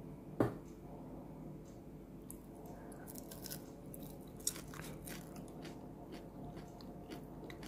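Someone biting into and chewing crispy, twice-fried homemade French fries. A sharp crunch about half a second in is followed by many small crunches as the fry is chewed.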